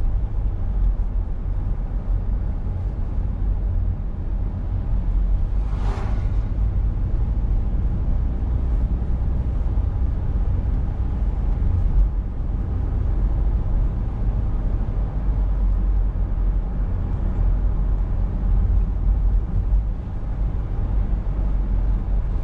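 A car driving along a road: steady low rumble of tyre and engine noise, with a brief hiss about six seconds in.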